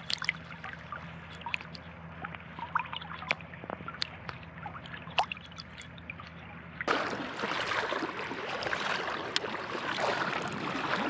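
Creek water trickling and dripping with small gurgles and clicks as hands hold a fish in the water. About seven seconds in it changes suddenly to a louder, steady rush of water.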